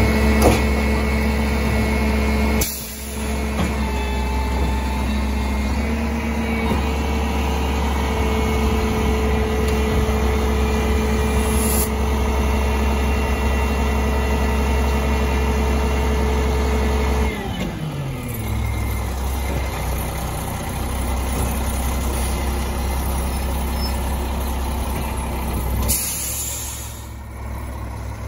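Mack rear-loader garbage truck's diesel engine running at steady raised revs. About two-thirds of the way through, the pitch falls smoothly and it settles to a lower idle. A few short hisses of air are heard along the way.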